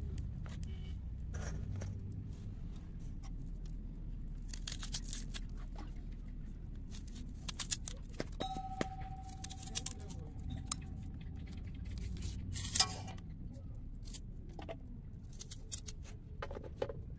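Light clicks and taps of steel dishes being handled and set down on a steel plate, over a low steady rumble. A steady high tone holds for about three seconds midway.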